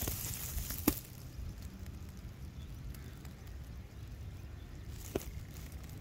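Low rumble of wind on the microphone, with two sharp clicks, a loud one about a second in and a fainter one about five seconds in.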